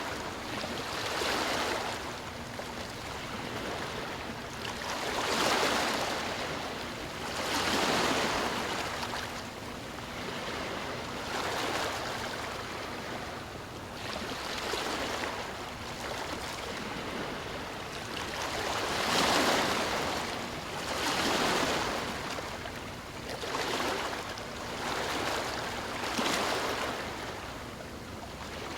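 Sea waves washing on a shore, each wash swelling and fading every two to four seconds.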